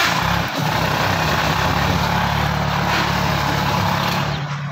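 Sonalika 35 and Powertrac Euro 60 tractors' diesel engines running steadily under heavy load, as one tractor drags the other backwards in a tug-of-war.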